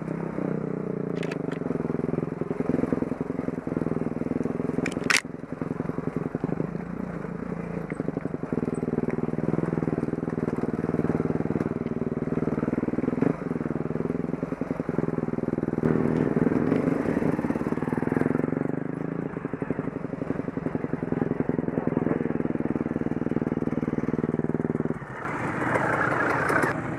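Dirt bike engine running at an even, low pace as the bike picks its way up a rocky trail, with a single sharp knock about five seconds in. Near the end the sound changes abruptly to a brighter, noisier mix.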